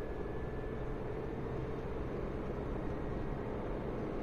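Renault Clio's 1.0-litre three-cylinder turbo petrol engine (factory LPG version) pulling at full throttle in fifth gear, heard from inside the cabin with steady road and wind noise.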